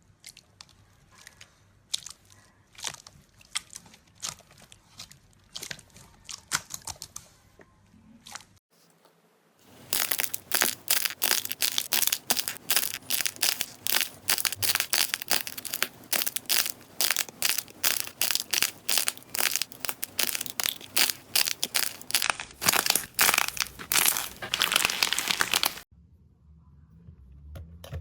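Slime being squeezed and worked by hand, giving crisp crackling clicks and pops. Scattered at first, then after a short pause a dense run of rapid crackles that stops abruptly near the end.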